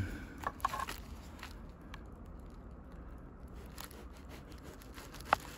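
A folding-knife blade slicing through a loaf of white bread, the crust crunching and scraping faintly under the edge. A few light clicks come just after the start, and a single sharp click comes near the end.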